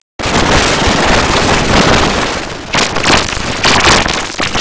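Heavily effect-processed, distorted cartoon audio: a loud, harsh rushing noise with no recognisable voice, surging and falling several times after a brief dropout at the very start.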